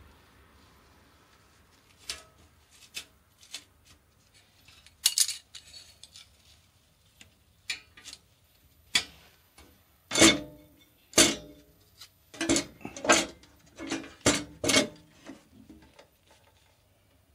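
Band saw's lower wheel cover door being handled and shut: scattered light metallic clicks, then a run of louder knocks and clanks over a few seconds.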